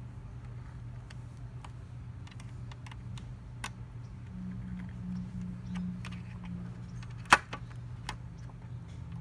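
Light clicks and taps of an Asahi windshield's mounting bracket and its hardware being handled, with one sharp, loud click a little past seven seconds in. A low steady hum runs underneath.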